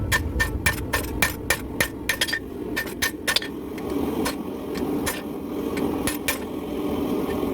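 Hammer blows on hot steel at the anvil, drawing out a tomahawk blade: a quick run of blows, about three or four a second, for the first three seconds or so, then a few scattered blows.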